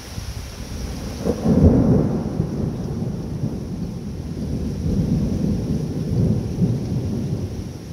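Thunder rumbling through heavy rain: a deep roll begins about a second in and peaks just after, followed by further rolling swells, over the steady hiss of driving rain.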